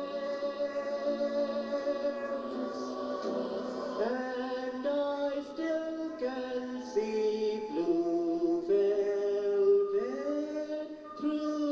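A recorded song played over a portable boombox's speaker: a singing voice holds long notes and slides from one pitch to the next.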